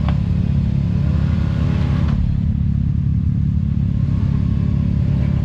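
Side-by-side UTV engine running steadily, with the revs climbing between about half a second and two seconds in.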